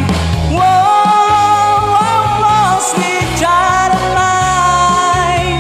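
Rock song playing: a voice sings two long, slightly wavering held notes over band backing with a steady bass line.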